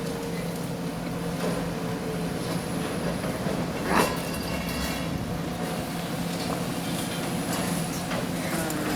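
Heavy demolition machinery running steadily with a low hum, and one loud sudden noise about four seconds in.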